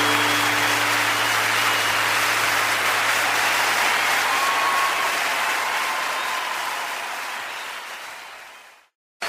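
Audience applause at the end of a live song recording, with a faint low note held underneath; it fades out to silence just before the end.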